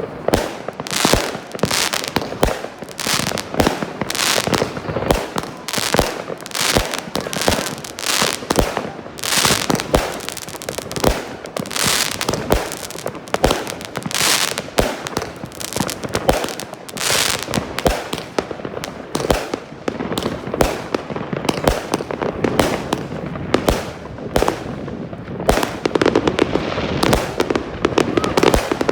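Kick Off fireworks cake, a 61-shot battery of 20 to 30 mm tubes, firing shot after shot, several a second without a break, the launches and aerial bursts running together.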